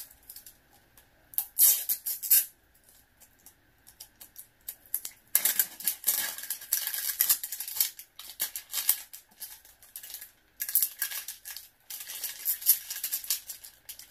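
Gift packaging being torn open and crinkled by hand, in several rustling bursts of a second or two each.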